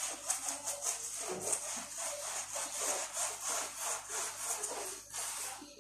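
Hard tiled surface being scrubbed in quick, steady back-and-forth strokes, a rasping rub while working at stubborn kitchen grime.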